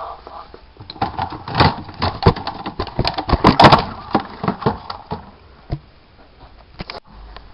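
Bedside alarm clock being grabbed and handled in the dark: an irregular run of clattering knocks and clicks, densest between about one and four seconds in, then a few scattered taps and a sharp click near the end.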